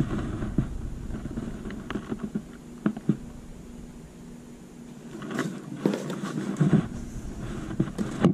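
Handling noise: rustling and soft knocks as hands lift caps and brush the flaps of a cardboard box, heaviest in a cluster around the middle and again near the end, over a faint steady hum.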